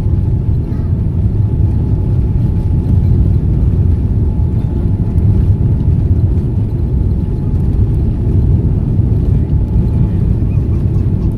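Boeing 787 jet engines: a steady low rumble with a faint steady whine above it.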